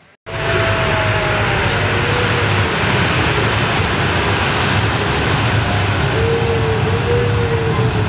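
Zoo toy train running through a tunnel, heard from an open passenger carriage: a loud, steady rumble of wheels and engine that cuts in abruptly just after the start, with a few wavering high tones over it.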